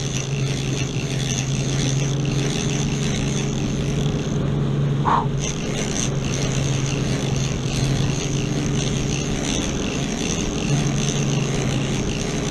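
Boat engine running steadily underway, a low drone with wind and water rushing past. A short high squeak sounds about five seconds in.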